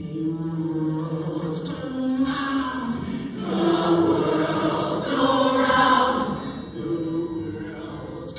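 Show choir singing: a large mixed-voice choir holding sustained chords, swelling louder twice in the middle.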